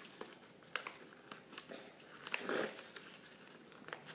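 Paper being folded and pressed down by hand: scattered light clicks and taps, with a short rustle a little past halfway.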